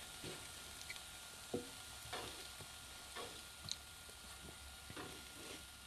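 Shiitake-stem and wheat-gluten patties frying in a nonstick pan with a faint, steady sizzle, and a wooden spatula scraping and tapping the pan a few times as the pieces are pushed around.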